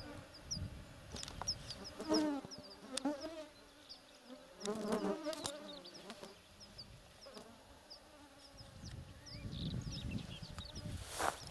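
A flying insect buzzing close by, its hum rising and falling in pitch as it passes, over repeated short high chirps. Near the end, rustling steps through dry grass start.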